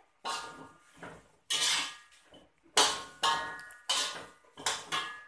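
Metal slotted spatula scraping and knocking against a metal wok as chicken in soy-sauce gravy is stirred: about eight strokes, several leaving a brief metallic ring.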